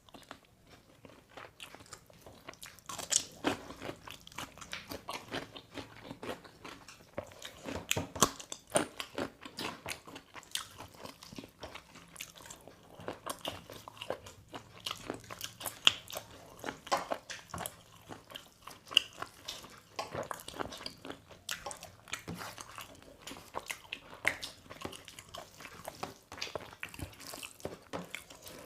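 People eating chicken with their hands: irregular close-up crunching, chewing and smacking, with sharper bites now and then.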